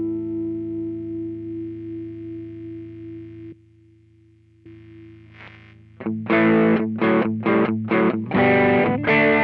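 Electric guitar through an Ibanez Tube Screamer overdrive pedal: a sustained overdriven chord rings and fades out, and after a short pause a riff of short, chopped overdriven chords starts about six seconds in.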